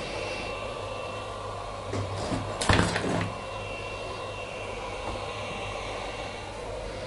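Hot-air heat gun running with a steady blowing hum, warmed up for desoldering. A brief clatter of handling knocks comes about three seconds in.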